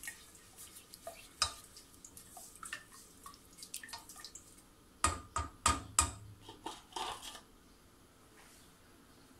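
A spoon scraping and clinking against a stainless steel pot as sugar is stirred into water, with a run of louder knocks about five seconds in; then the stirring stops and only a faint steady background remains.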